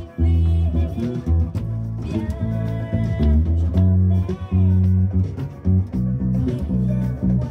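Electric bass guitar played fingerstyle along with a pop song recording; the bass holds strong low notes in a repeating rhythmic pattern with short gaps between them.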